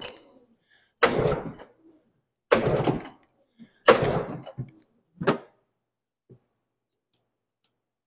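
Recoil pull starter on an Arctic Cat Panther snowmobile's twin-cylinder engine yanked four times, about a second and a half apart, each pull a short rasp as the engine cranks over hard. The engine never fires: there is no spark at the plug.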